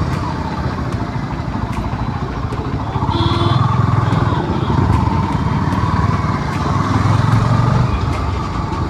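Motorcycle engine running while riding through town traffic, its note swelling about three seconds in and again near seven seconds.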